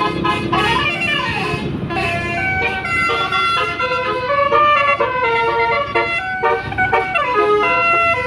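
Tour bus telolet horn playing a multi-tone melody of held, stepping notes, with siren-like sliding sweeps about a second in and again near the end.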